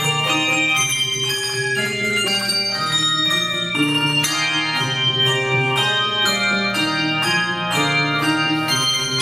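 Handbell ensemble playing a piece: many bell notes ringing together in changing chords, with new notes struck every half second or so.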